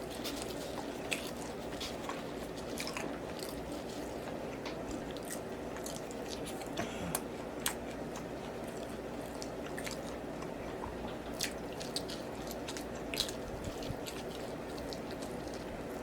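A person chewing and biting food close to the microphone, with wet mouth clicks and smacks scattered over a steady low hum.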